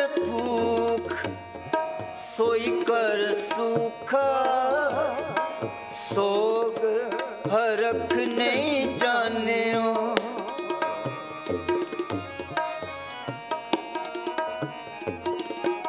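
Kirtan music: tabla playing a steady rhythm under harmonium. For the first ten seconds or so a gliding, wavering sung melody line runs over them; after that the harmonium's held notes and the tabla strokes carry on alone.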